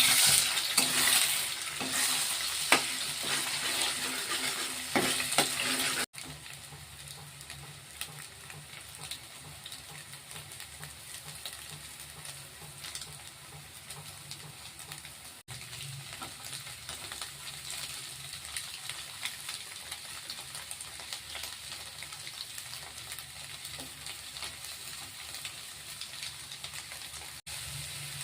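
Egg fried rice sizzling as it fries in a pan while it is stirred, with sharp knocks in the first few seconds. The sizzle drops to a quieter, steady hiss after an abrupt cut about six seconds in.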